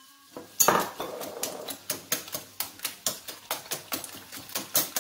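Wire whisk clinking against a porcelain bowl while beaten eggs are stirred, about three or four clicks a second, with a louder knock about half a second in.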